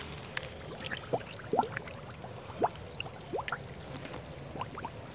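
Plastic jug trap held under water, gurgling as it fills: several short rising glugs as air bubbles out of the jug.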